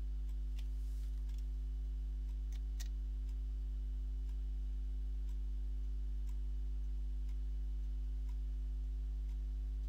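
A steady low hum under a scattering of faint, irregular clicks.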